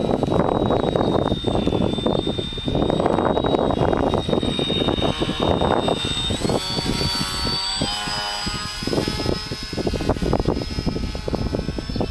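Electric RC delta-wing model plane, a 30-inch Jetcord with a Blu Wonder 1700 kV brushless motor and 8x4.3 propeller, flying with a steady high whine from its motor and prop. The whine rises in pitch about six seconds in as the plane passes close, with several tones layered for a couple of seconds, all over a gusty rumble.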